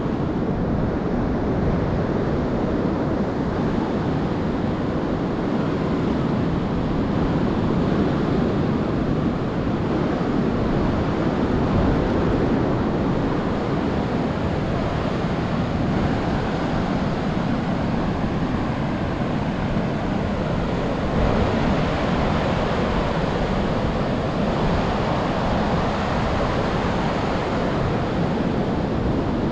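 Steady wash of ocean surf breaking along a sandy beach, mixed with wind rushing over the microphone.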